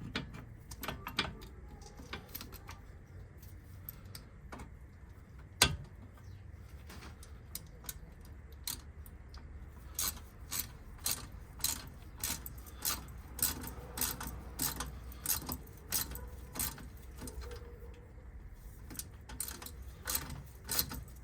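Small metal clicks and clinks of hand tools being worked on a car's front brake assembly, with one louder knock about six seconds in. In the second half the clicks settle into a steady run of about two a second.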